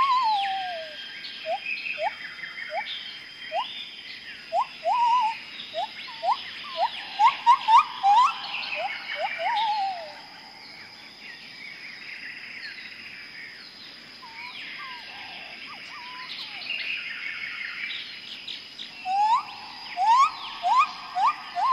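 Tropical rainforest bird chorus. One bird gives a fast series of short rising whistles, then breaks off about ten seconds in and starts again near the end. Many other birds chirp and trill higher up over a steady high-pitched hum.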